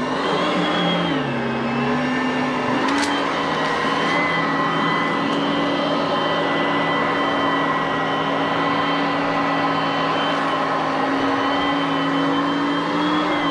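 Oreck upright vacuum cleaner motor running with a steady whine. About a second in, its pitch drops briefly and comes back up, with a sharp click about three seconds in.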